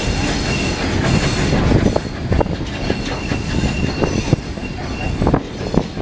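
Passenger car rolling over old, rough jointed track: a steady rumble of wheels on rails, with irregular sharp clacks at the rail joints every second or so and a thin, high wheel squeal that fades and returns.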